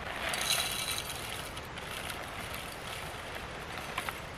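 Whole coffee beans pouring from a bag into the hopper of a small hand coffee grinder, a dense rattle that is loudest in the first second and a half and then thins out, with a few faint clicks near the end.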